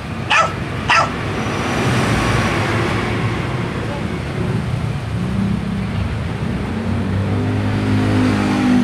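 Two sharp clicks of a handlebar switch being pressed, about a second apart, working the headlight passing flash. A motor vehicle engine then runs low in the background, growing louder near the end.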